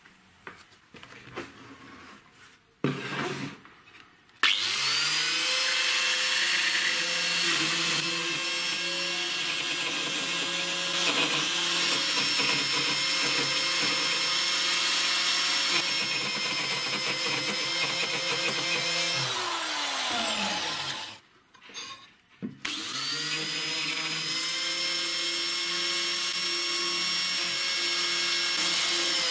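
Angle grinder rigged as a homemade wood router, with a drill chuck holding a cheap straight bit, starts with a rising whine about four seconds in and routes into a softwood board: a steady high motor whine over the noise of the cut. After about fifteen seconds it winds down with a falling pitch, and after a short pause it is started again and cuts once more. A few light knocks come before the first start.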